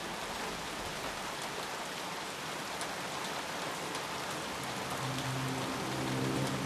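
Steady rain falling, a dense even hiss with faint drop ticks. A low steady hum of several tones comes in about five seconds in.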